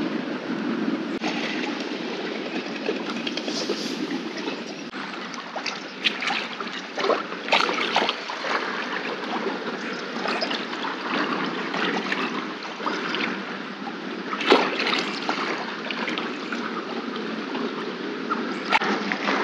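Lake water lapping and trickling in a steady wash, broken by a few short, sharp splashy clicks, the loudest about three quarters of the way through.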